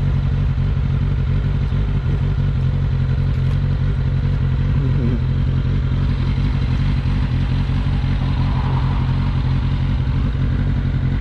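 Kawasaki Ninja 600's inline-four engine idling steadily, holding an even low note with no revs.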